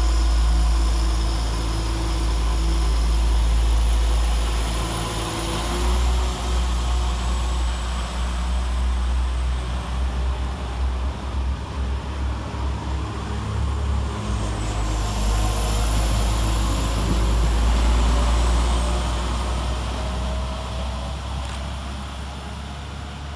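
Two coupled Class 172 Turbostar diesel multiple units pulling away from the station under power. The engines give a steady low rumble with rising whines as they accelerate, and the sound fades near the end as the train draws away.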